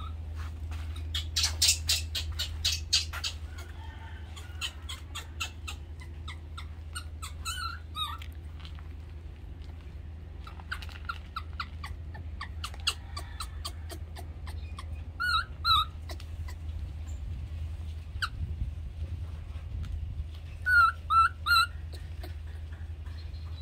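Short, high-pitched chirping calls come in small clusters of two or three, several times, with scattered clicks, over a steady low hum.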